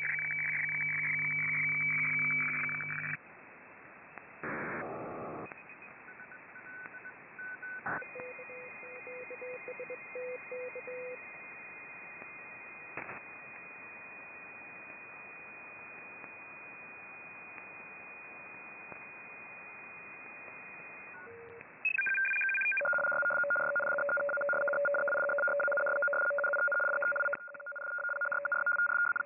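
Shortwave receiver in upper-sideband mode tuned across the 8 MHz maritime band. A strong data signal of steady tones cuts off about three seconds in. Then comes hiss with a few short beeps and a long steady whistle from a carrier, and for the last six seconds a loud data signal of two steady tones, one high and one low, with a fast flutter.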